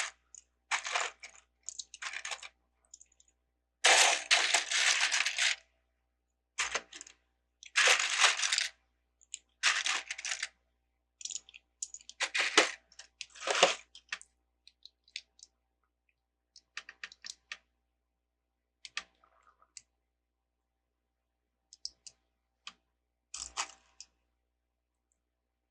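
Loose plastic Lego bricks clattering as a hand rummages through a pile of pieces, in bursts of one to two seconds through the first half, then only scattered light clicks.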